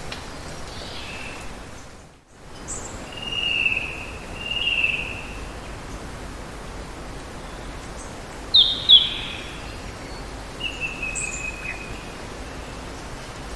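Nature ambience: a steady hiss of running water with birds calling over it, two drawn-out whistles around four to five seconds in, two sharp chirps near the middle, and a falling whistle later on. The background drops out briefly about two seconds in.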